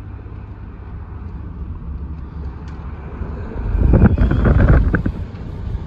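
Car cabin noise while driving: a steady low drone of engine and tyres, with a louder rush of noise lasting about a second, around four seconds in.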